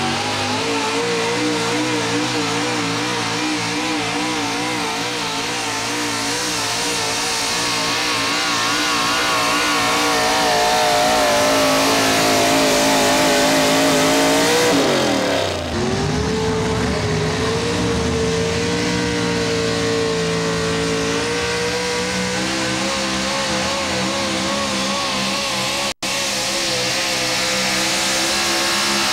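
Big-block V8 engines of pulling pickups running at high revs under load while dragging a sled, the pitch wavering and climbing. At about fifteen seconds one engine's note falls away and another truck's engine takes over, holding steady at high revs.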